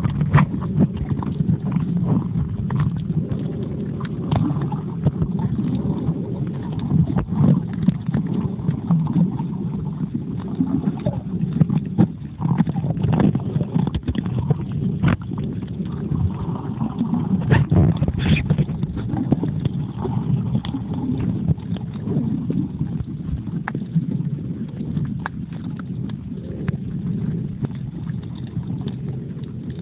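Underwater noise picked up by a phone's microphone sealed in a waterproof pouch: a muffled, low rumble of moving water with many scattered clicks.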